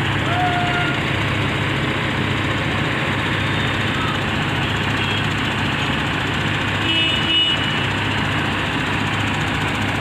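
Heavy diesel engines of mobile cranes running steadily under load while lifting a precast concrete bridge girder.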